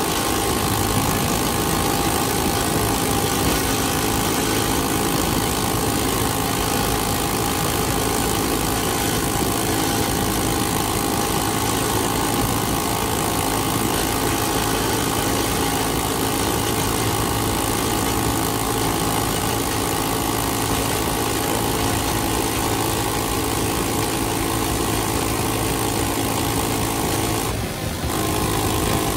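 Coleman CT200U minibike's single-cylinder engine, breathing through a 30 mm PWK carburetor, running steadily. It breaks off briefly near the end and picks up again at a slightly different pitch.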